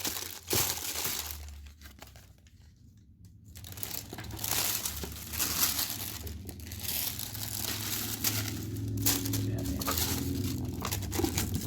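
Paper crinkling and rustling as the sneakers' wrapping paper is handled in the shoebox, with a brief lull about two seconds in.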